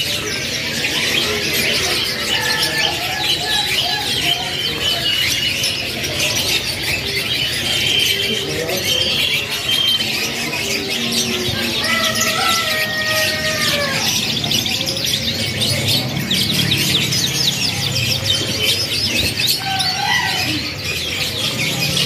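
Many caged canaries chirping and twittering at once, a dense, unbroken high chatter of short calls and trills, with a steadier held tone for about two seconds near the middle.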